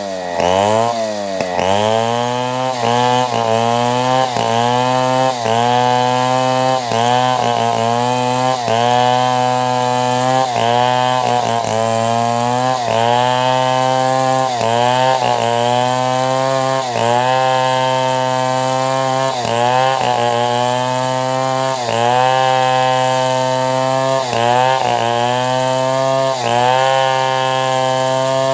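Two-stroke chainsaw running at high revs while cutting timber into planks. Its pitch sags and recovers about once a second as the chain bites into the wood, with one deeper drop and climb back about a second in.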